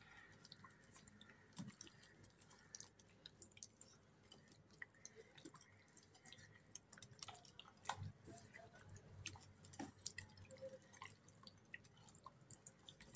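Faint wet squelching and small scattered clicks of a hand rubbing green masala paste into raw chicken pieces in a steel bowl, marinating the meat.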